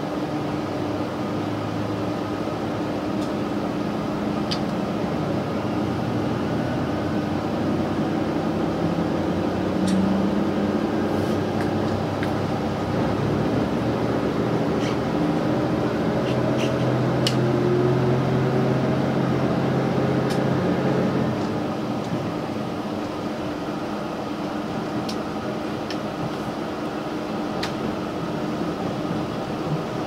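Diesel engines of a JR Shikoku 2700-series tilting express railcar pulling away from the station, heard inside the carriage: the engine note climbs steadily as the train accelerates, then eases off about two-thirds of the way through. Over a constant hum come scattered light clicks and knocks from the running gear.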